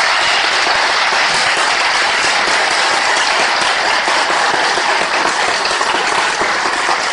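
Large audience applauding, steady and loud throughout.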